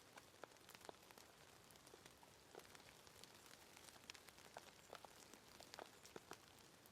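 Faint steady rain: a soft hiss with many scattered individual drops ticking irregularly on the ground.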